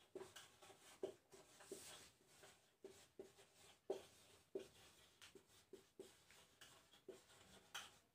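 Marker pen writing on a whiteboard: a faint run of short, irregular strokes and taps as words are written.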